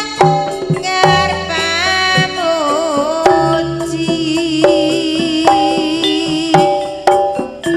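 Live Javanese campursari music: a hand drum (kendang) beats a steady pattern of strokes under a sustained melody that wavers with vibrato, over a held low bass note.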